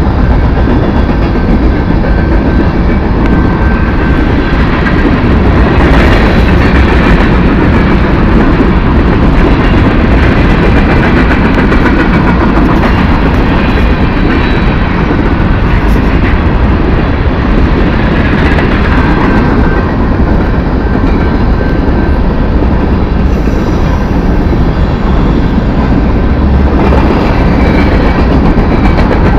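BNSF freight train of covered hopper cars rolling past at close range: a loud, steady rumble of steel wheels on the rails.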